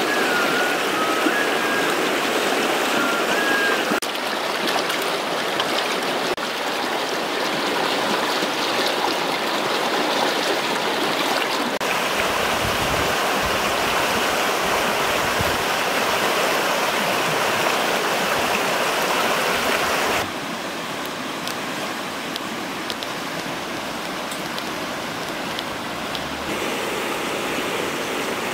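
Fast, swollen river rushing over rocks: a steady, even rush of water. A few short whistled notes sound in the first few seconds, and the rush gets quieter a little over two-thirds of the way through.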